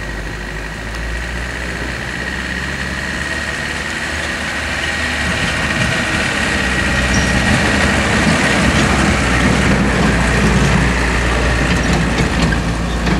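Light dump truck's diesel engine running as the truck drives slowly over a rough dirt track, growing steadily louder as it approaches. A steady high whine sounds alongside the engine.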